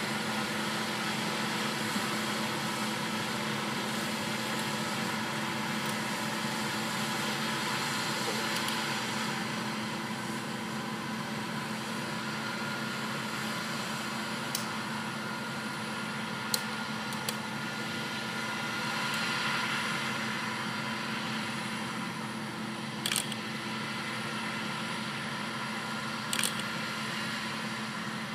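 Combine harvester running steadily while harvesting wheat: a continuous mechanical drone with a low hum. A few sharp clicks stand out in the second half.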